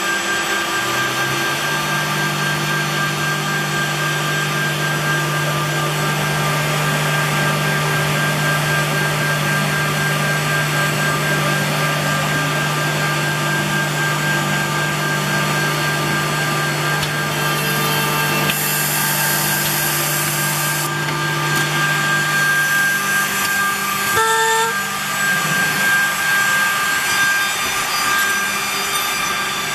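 Nanxing MFB(Z)80 through-feed edgebanding machine running: a steady motor hum and whine under a hiss of wood cutting. A brighter burst of high hiss comes about eighteen seconds in, and the hum changes pitch about twenty-four seconds in.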